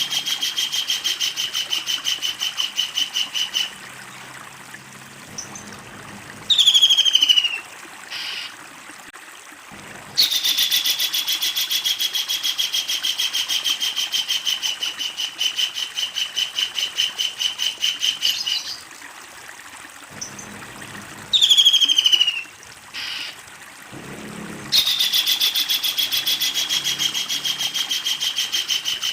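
Kingfisher calling: long, rapid chattering trills of many evenly repeated notes, each run lasting several seconds, broken twice by a short loud burst of falling notes.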